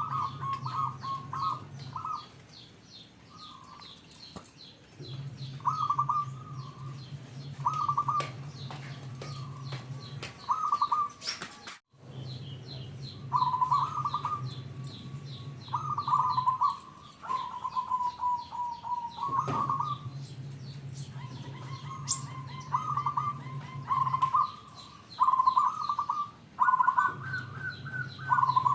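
Zebra dove (perkutut) singing its repeated, staccato cooing song in short rhythmic phrases of quick notes, with small birds chirping faintly behind it. The audio cuts out briefly near the middle.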